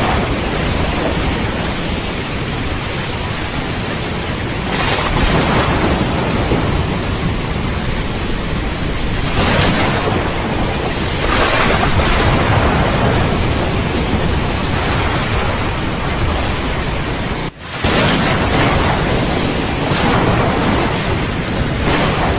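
Heavy steady rain with rolling thunder that swells up several times, with a brief dropout about three-quarters of the way through.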